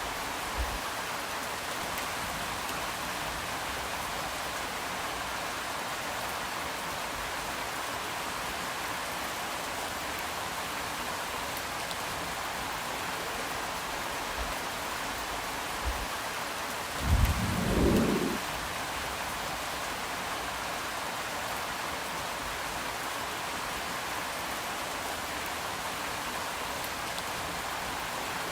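Steady rain falling, an even hiss of drops. About 17 seconds in there is a brief low rumble lasting a second or so, the loudest moment.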